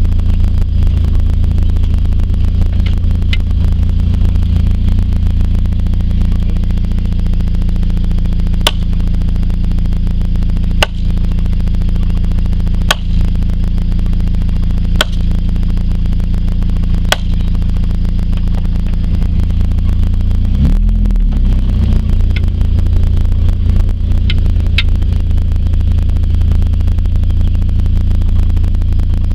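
Vehicle engine running at low speed, heard from inside the cab as a steady low drone. In the middle come five sharp strikes about two seconds apart: a trellis post being pounded. The engine note shifts briefly about two-thirds of the way through.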